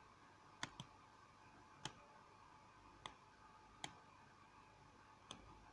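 Faint, isolated computer mouse clicks, about six spread out with a quick pair near the start, over quiet room tone.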